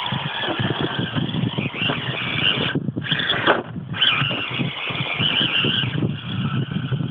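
Electric motor and gear drivetrain of a 1/6-scale RC Ford Raptor rock crawler whining as it climbs rock, the pitch wavering with the throttle, over a steady rushing noise. The noise briefly drops out around the middle.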